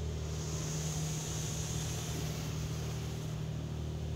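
Steady low mechanical hum with an even hiss, heard from inside a car's cabin while it sits in an automatic car wash.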